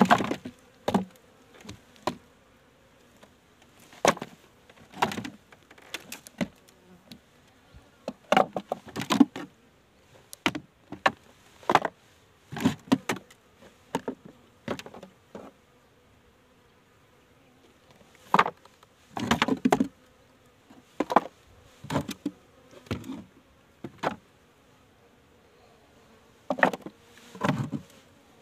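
Honeybees buzzing in short passes close to the microphone, mixed with irregular sharp clicks and knocks.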